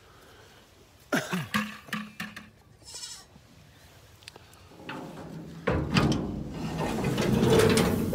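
Goats bleating: a few short bleats about a second in, then louder, longer calls in the second half.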